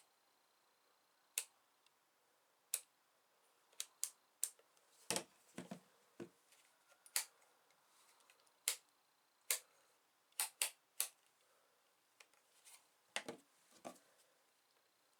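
Sharp plastic clicks at irregular intervals, some in quick pairs, from a multimeter's rotary selector switch being turned and the meter handled.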